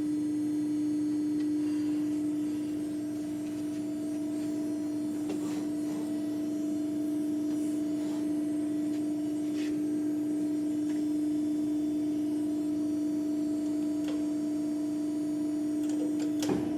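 CNC press brake running through a bending cycle: a steady machine hum on one low tone with a fainter higher tone, a few faint clicks, and brief knocks near the end.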